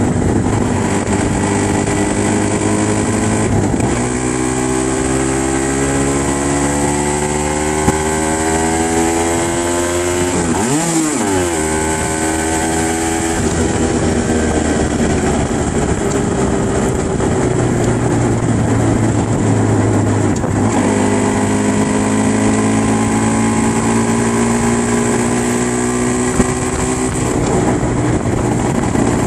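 Aprilia RS125's 125 cc two-stroke single-cylinder engine running under way, heard from the rider's seat. Its pitch rises steadily twice as it pulls and eases down in between.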